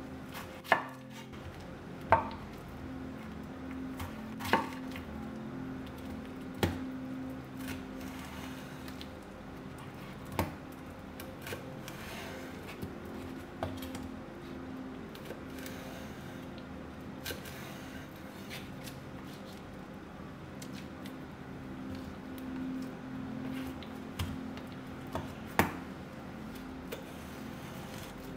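A chef's knife cutting through peeled pineapple and knocking on a wooden cutting board, with sharp knocks every second or few seconds. A faint steady hum runs underneath.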